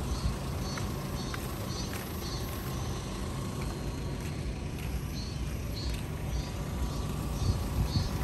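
Outdoor ambience: a steady low rumble, with short high chirps repeating about twice a second for the first few seconds and again from about five seconds in.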